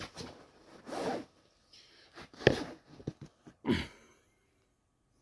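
Handling noise from a phone being moved: about five short rubbing, rustling scrapes in the first four seconds, with a sharp knock about two and a half seconds in and a few small clicks just after.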